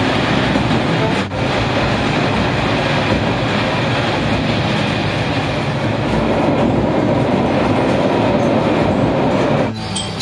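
Steady running noise inside a diesel railcar: engine and wheels on the rails, with a brief dip about a second in. Near the end it cuts off suddenly, giving way to quieter, evenly repeating ringing tones.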